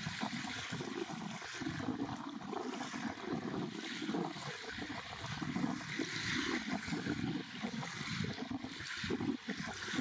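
Small waves washing and breaking onto a sandy beach, a steady wash of surf that swells a little about six seconds in.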